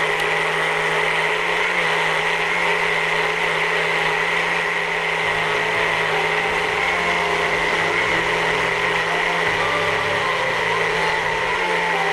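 Electric countertop blender running steadily with a constant whine, blending a liquid sobia drink of powder, powdered milk and water.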